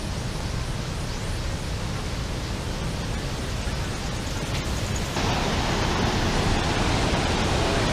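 Steady rushing of falling water from a waterfall, which grows louder about five seconds in.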